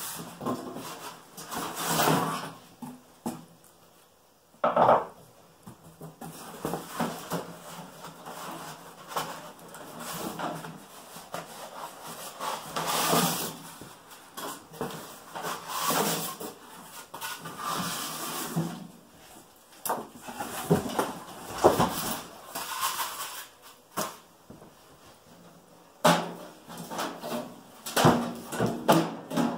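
A cardboard box being opened and unpacked by hand: cardboard flaps rustling and scraping, packing tape pulling loose, with irregular knocks and clatters, a cluster of them near the end as a galvanized sheet-metal box comes out.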